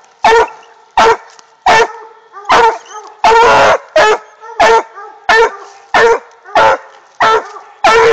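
Five-month-old black and tan coonhound pup barking treed: a steady run of about a dozen loud barks, roughly one and a half a second, with one longer bark about three and a half seconds in. This is the tree bark of a hound that has put its quarry up a tree.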